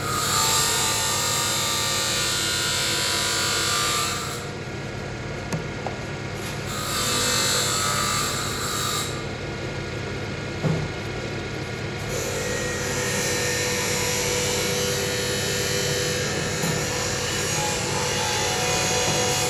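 A workshop power tool whirring with a hissing sound in three stretches of several seconds each, with a couple of sharp knocks between them.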